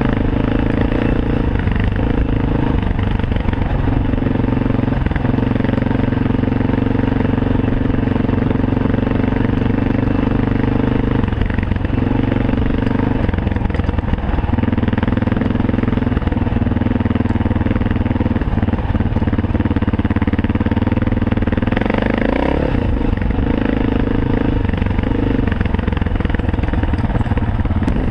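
Cagiva W16 dual-sport motorcycle engine running while riding. The engine note holds steady for stretches and shifts with throttle and gear changes, with a short rise in revs about three-quarters of the way through.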